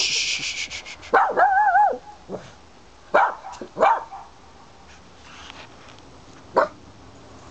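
A Cavalier King Charles Spaniel barking outdoors: a longer call with a wavering pitch, then three short, sharp barks spaced out over the next few seconds. A brief high, rapid rattling trill sounds at the very start.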